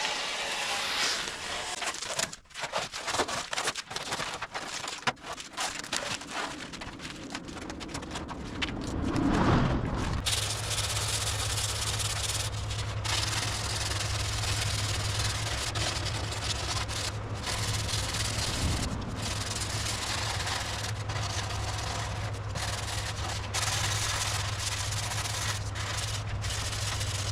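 Irregular scratchy rubbing of hand sanding for about the first ten seconds. Then a power tool motor starts up and runs steadily with a low hum to the end.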